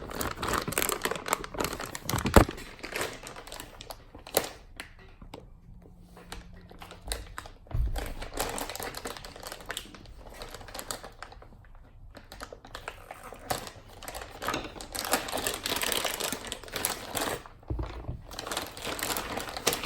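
Plastic packaging of new RC car tires being torn open and handled, crinkling in irregular bursts with a sharp click a couple of seconds in.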